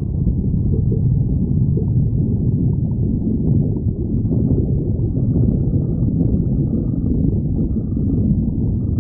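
Human stomach growling from hunger: a continuous low rumble.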